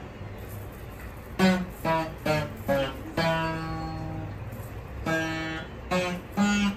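Saraswati veena played by a beginner: single plucked notes one after another, with one longer ringing note about three seconds in, after a short lull at the start.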